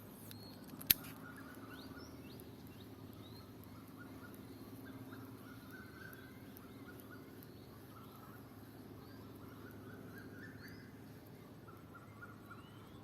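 Small birds chirping here and there, many short rising calls, over a faint steady low hum. A single sharp click about a second in.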